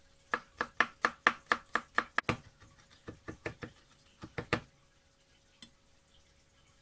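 Kitchen knife chopping garlic on a wooden cutting board: a quick run of about ten chops, some five a second, then a few softer chops, stopping a little past halfway.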